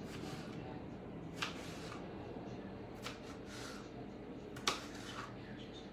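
Kitchen knife cutting potato slabs into fries, the blade knocking on the cutting board three times, about a second and a half apart, the last knock the loudest.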